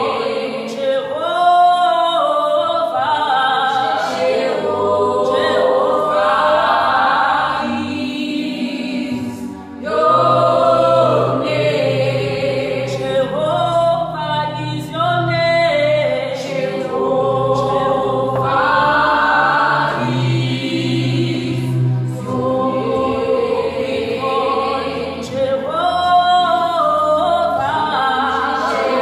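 A small gospel worship choir singing a song together in harmony, with a short break about nine and a half seconds in.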